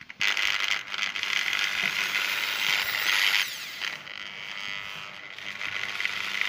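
Cordless drill running with its housing opened, the exposed brushed motor and gearbox giving a steady mechanical noise that drops somewhat about halfway through.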